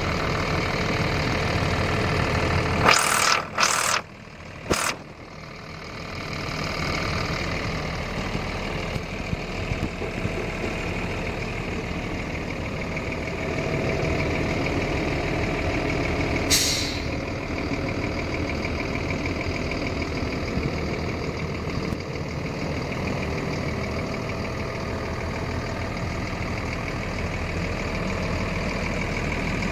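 Caterpillar inline-six diesel engine of a 1998 M1078 military cargo truck idling steadily. Several short, loud hisses of air come about three to five seconds in, and one more at about sixteen seconds.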